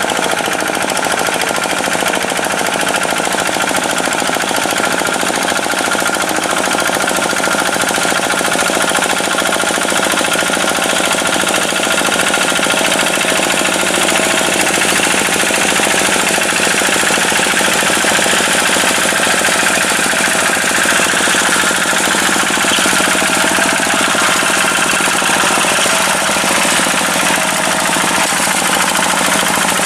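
Tractor's diesel engine running steadily under load, with a rapid, even clatter.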